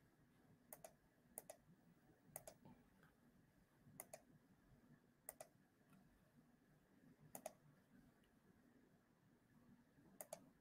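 Faint, irregular clicks of a computer mouse, about eight in all and most of them quick double clicks.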